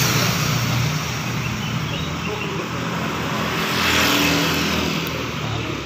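Honda Freed's petrol engine idling steadily with the bonnet open, heard close to the engine bay. Road traffic swells briefly about four seconds in.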